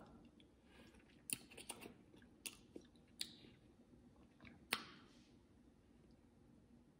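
Faint sounds of a person eating stuffed salmon off a fork: about five soft clicks and smacks spread over a few seconds, over near silence.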